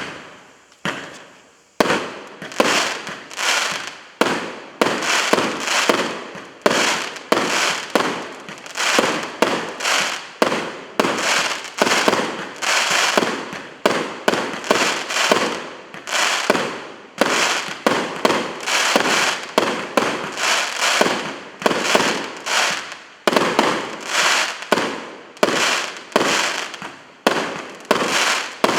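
A 49-shot fireworks cake firing: a rapid, steady run of sharp bangs, about one to two a second, each fading away quickly before the next.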